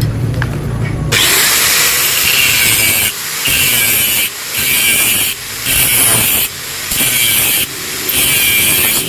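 A power tool working on the metal of a motorcycle exhaust being bored out, running in about six bursts of roughly a second each with short pauses between them. A low rumble fills the first second before the tool starts.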